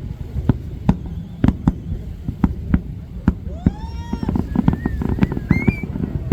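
Fireworks exploding in a quick series of sharp bangs, about two to three a second. Partway through, high rising and wavering tones join the bangs.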